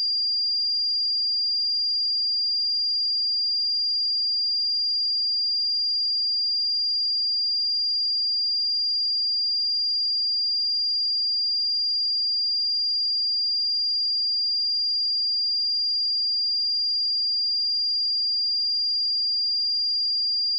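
Steady pure sine-wave test tone at 4793 Hz, a single high-pitched whistle-like note held at constant pitch and level.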